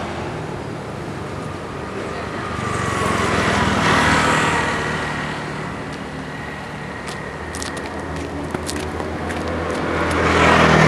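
Road traffic: motor vehicles passing, one swelling and fading about four seconds in and another building near the end, over a steady background hum.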